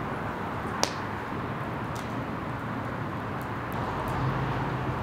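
Open wood and charcoal fire burning with a steady rushing noise and a few crackles, one sharp loud pop just under a second in. A low hum swells near the end.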